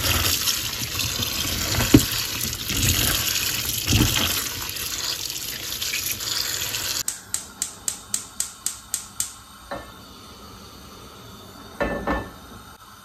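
Kitchen tap running onto chopped bok choy stems in a plastic colander while a hand swishes them through the water. The water stops about seven seconds in, followed by a run of about nine quick, evenly spaced clicks, about four a second, and a couple of knocks.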